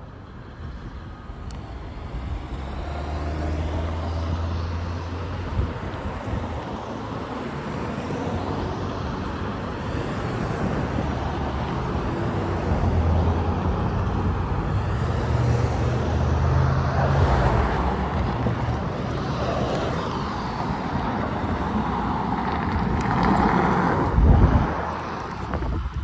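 Freight train rolling past: a steady rumble of wheels on rail that builds over the first few seconds and then holds, with a heavy thump near the end.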